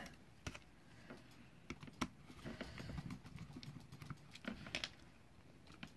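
Faint, irregular light clicks and taps of small T8 Torx screws being taken out of a plastic steering-column multifunction switch housing with a screwdriver, and the switch being handled; the sharpest click comes about two seconds in.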